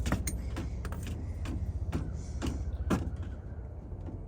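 A few sharp clicks and knocks of small parts being handled and fitted together, plastic pieces of the spark plug wire and its clip being pushed into place, over a steady low hum.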